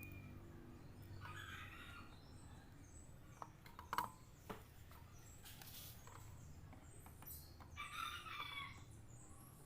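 A rooster crowing faintly twice, about a second in and again near the end. A few sharp clicks come midway.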